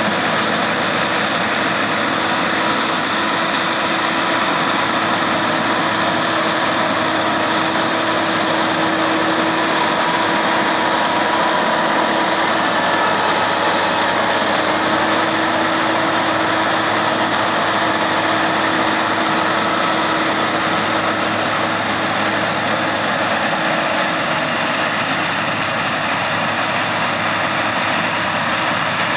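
Massey Ferguson 9895 combine running steadily while harvesting corn: a constant mechanical drone with a few held steady tones running through it.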